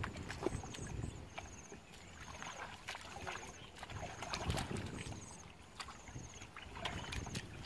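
Hands squelching and sloshing through shallow muddy water while groping for fish, in irregular wet splashes. A short high chirp repeats about once a second behind it.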